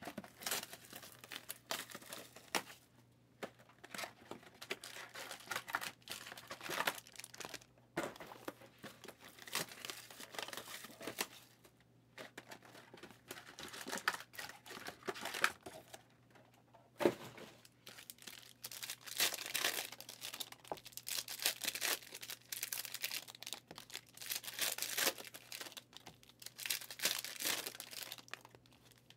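Plastic wrappers of trading-card packs being torn open and crinkled, in irregular stop-start bursts.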